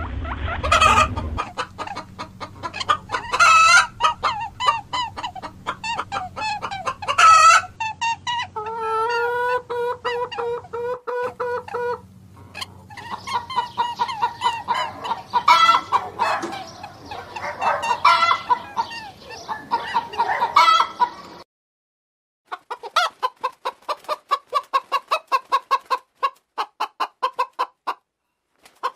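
Chickens clucking in quick runs of calls, with one long held call a little before the middle. The calls stop for about a second near three quarters through, then go on as a fast, even run of clucks.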